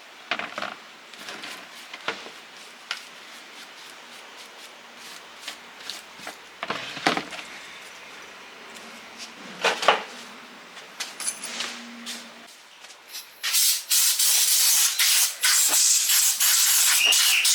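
Small clicks, knocks and rubbing from handling and working on grinder parts, then about three-quarters of the way in a loud, steady hiss of a spray starts, broken by short pauses, the kind a cleaning spray or air blow-off makes on the parts.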